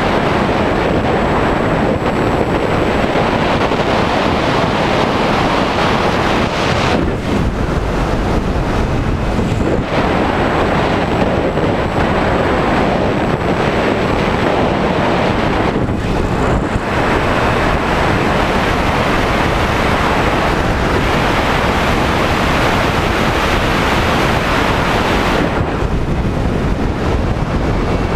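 Airflow buffeting the onboard camera's microphone on a Skywalker RC plane in flight: a loud, steady rush of wind. The hiss thins out in its upper part a few times, near a quarter of the way in, around the middle, and again near the end.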